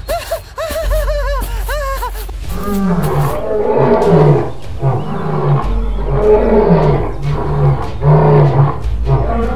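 Lion roars, a sound effect dubbed onto animated lions: a run of short arching cries, then a string of rough roars about every second and a half starting a couple of seconds in.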